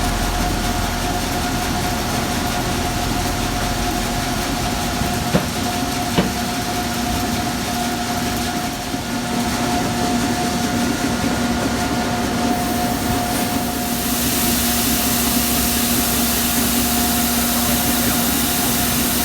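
A heavy engine idling steadily with a constant hum. About two-thirds of the way through, a loud hiss joins in and carries on.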